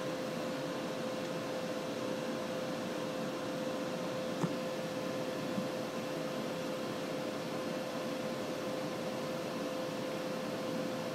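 Steady fan-like hiss and hum with a constant mid-pitched tone, broken by two faint clicks around the middle.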